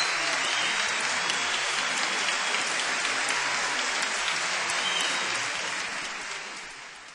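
Concert hall audience applauding steadily after a symphony performance, fading out over the last couple of seconds.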